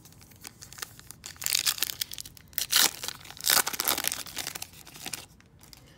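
A trading card pack's wrapper being torn open and crinkled by hand, a run of crackling rustles from about a second and a half in until about five seconds in.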